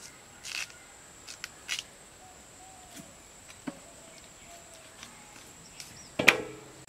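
Raw chicken being handled and washed by hand, with scattered soft clicks and knocks, then about six seconds in a loud clang as a piece lands in a large metal platter, ringing briefly.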